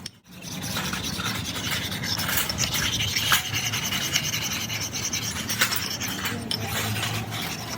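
Steady rasping, scraping noise with many scattered short clicks, starting after a brief gap.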